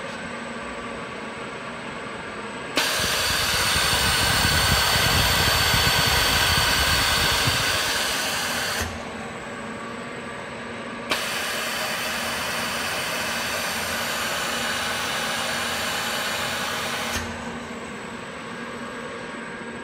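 Stamping-line machinery running with a steady hum. Twice, for about six seconds each, a much louder rushing noise switches on with a click and then stops.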